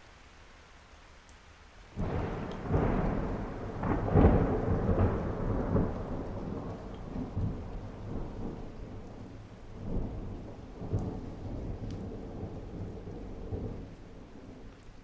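Steady rain, then a sudden clap of thunder about two seconds in that rolls on in several swells, loudest around four seconds in, and slowly dies away over the next ten seconds.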